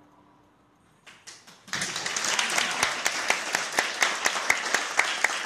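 Audience applause: a few scattered claps about a second in, then at about two seconds the whole audience breaks into steady clapping.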